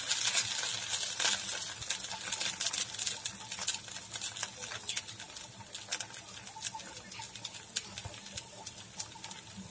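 Dosa batter frying in oil on a hot pan: a steady sizzle with many small crackles, while a ladle spreads the batter into a round.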